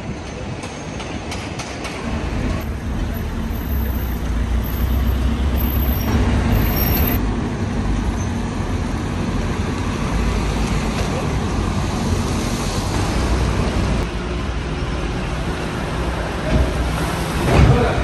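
Street traffic, with a large vehicle's engine running close by as a steady low rumble, and a brief louder swell near the end.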